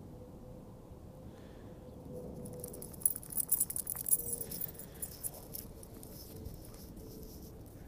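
Small metal pieces jingling in a quick cluster of bright clicks for about two seconds, starting about three seconds in, over faint outdoor background.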